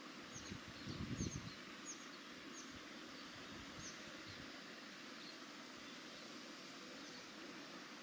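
Faint steady outdoor hiss with about five short, thin, high chirps from small birds in the first half. A few low bumps come in the first second and a half.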